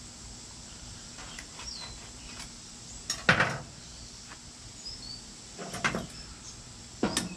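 Metal clanks from a hand-held lead sinker mold as it is opened and handled: two sharp clanks about three and six seconds in, with a few lighter clicks before them.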